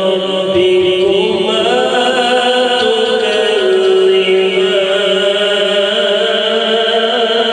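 A man reciting the Quran in the melodic tajweed style, drawing out long, ornamented held notes that glide up and down in pitch.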